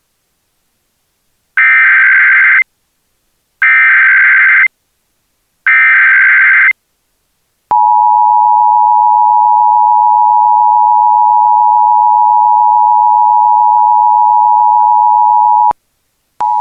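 Emergency Alert System broadcast tones: the SAME digital header, three one-second bursts of screeching data tones about two seconds apart, followed by the steady two-tone EAS attention signal held for about eight seconds. This sequence marks the start of an emergency alert, here an AMBER Alert activation. A short blip of tone comes near the end.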